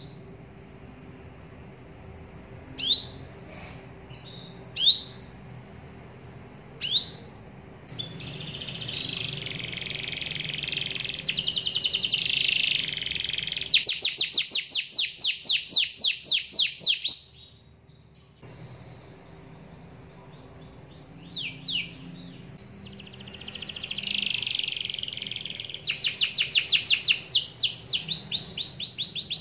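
Canary singing: a few separate rising chirps, then a long song of buzzy phrases and fast rolling trills. The song stops for a few seconds past the middle, then resumes with chirps and another fast trill.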